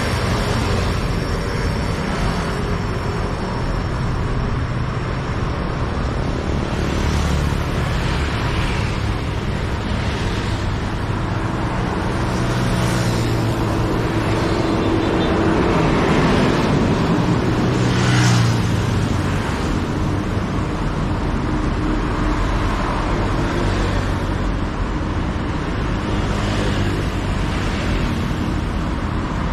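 Busy city road traffic: a steady stream of vehicles passing one after another, engine hum and tyre noise rising and falling with each pass. The loudest vehicle goes by about eighteen seconds in.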